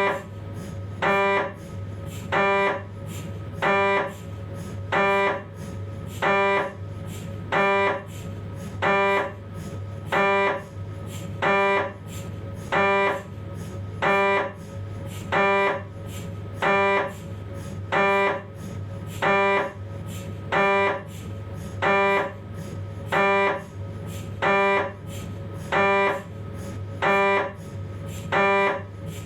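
Philips 1.5 T MRI scanner's gradient coils running a 3D T2-weighted spine sequence: a loud, pitched buzzing burst about every 1.3 seconds, each lasting under half a second. A steady low hum runs underneath.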